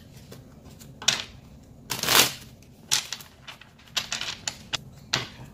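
A tarot deck being shuffled by hand: a string of short card-shuffling sounds, the longest and loudest about two seconds in.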